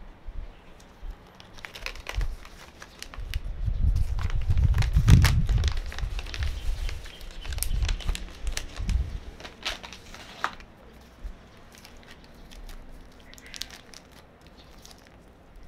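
Paper bag and a small packet crinkling and rustling as they are handled and torn open, a dense run of crackles for most of the first ten seconds, then only a few light rustles. A low rumble from handling swells in the middle and is the loudest part.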